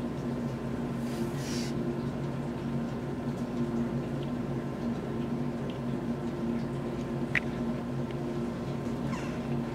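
Steady low hum of a running machine or appliance. A brief soft rustle comes about a second in, and a small click a little after seven seconds.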